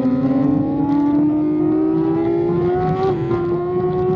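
2016 BMW S1000RR inline-four racing engine at high revs, its pitch climbing steadily under acceleration, with a small step down in pitch about three seconds in before it climbs again.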